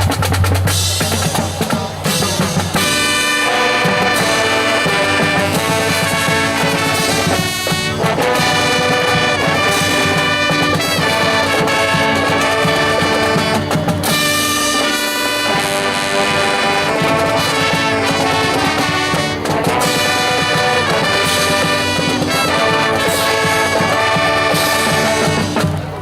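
Marching brass band playing: trumpets and trombones carrying the tune over drums.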